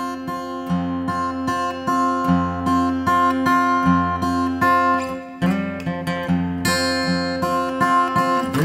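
Background music: an acoustic guitar picked in a steady run of plucked notes over sustained chords.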